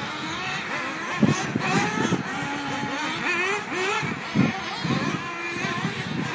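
Several 1/8-scale RC buggies racing, their small high-revving motors whining up and down in pitch over one another. A couple of brief low thumps come about a second in and again past the middle.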